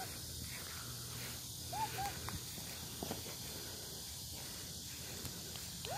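Faint outdoor background with a low steady hum and a couple of short, arched chirping calls from an animal about two seconds in, with another just at the end.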